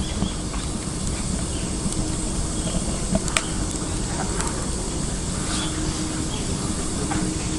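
Wood fire burning in a Petromax LOKI wood stove: scattered sharp crackles and pops over a steady rushing noise.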